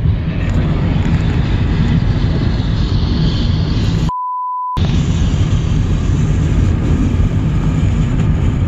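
Steady road and wind noise inside a car's cabin at freeway speed. About four seconds in, everything cuts out for about half a second under a single pure bleep tone.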